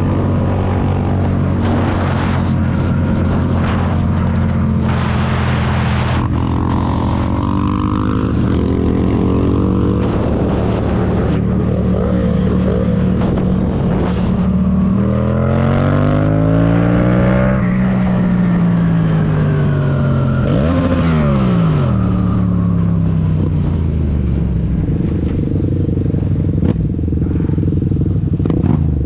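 Yamaha MT-07's 689 cc parallel-twin engine running steadily under way, then revving up about halfway through and dropping back, with a short blip of revs just after before settling to a steady lower note.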